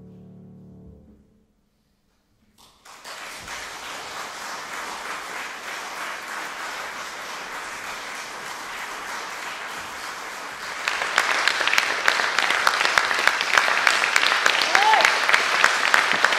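The last piano chord dies away, a moment of silence follows, then an audience breaks into applause, the clapping growing much louder about eleven seconds in.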